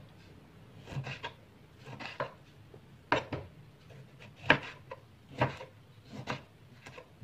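Broad-bladed kitchen knife slicing tomatoes on a wooden cutting board: the blade knocks on the wood about once a second, often in quick pairs.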